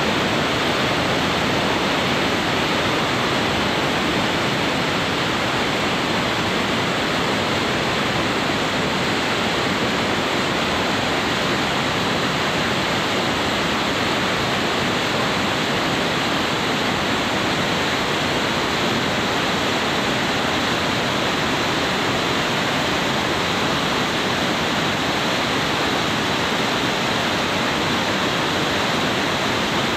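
Whitewater mountain stream rushing down a rocky cascade: a steady, even roar of falling water.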